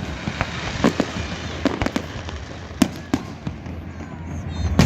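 Fireworks display going off: a string of sharp bangs from bursting shells, about seven in five seconds, with crackling between them.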